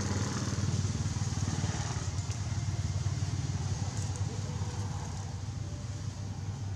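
An engine running steadily at a low, even pitch, with a faint hiss over it.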